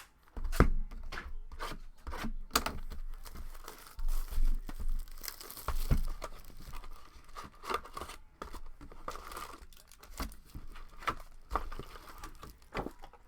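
Packaging being handled and packed: rustling, tearing and crinkling, broken by many short sharp taps and knocks.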